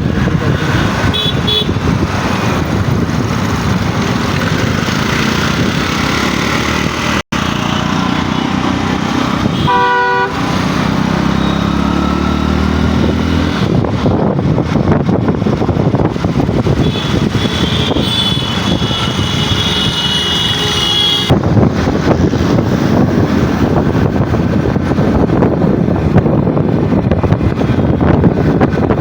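Loud, steady road-traffic noise with a vehicle horn sounding briefly about ten seconds in.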